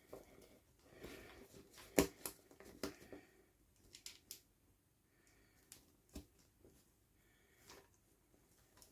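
Hands handling small plastic toys and packaging: scattered soft clicks, taps and rustles, the sharpest click about two seconds in.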